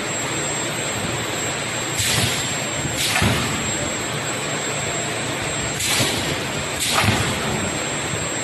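Automatic rice-ball forming machine running with a steady mechanical noise and a thin high whine, broken by short hisses in pairs about a second apart, each pair repeating roughly every four seconds as the pneumatic cylinders cycle.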